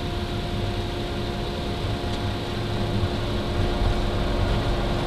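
Boeing 757 cockpit during the takeoff roll: steady engine and airflow noise with a constant hum, and a low rumble from the runway that grows slightly toward the end.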